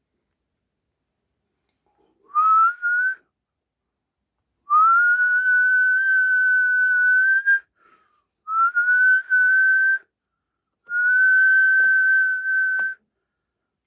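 Whistling on a single held note, in four spells: a short one about two seconds in, then three long ones, each sliding up in pitch at the start before holding steady. Two faint clicks come near the end.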